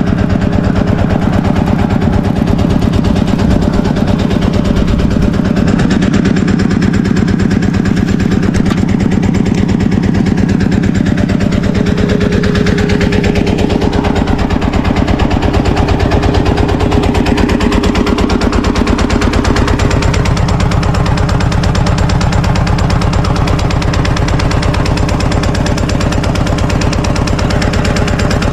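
An engine running steadily, with a rapid, even pulsing beat.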